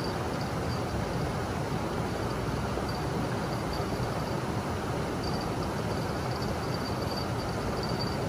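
A steady rushing noise, like flowing water or wind, under a faint, high insect trill that comes and goes in short pulses.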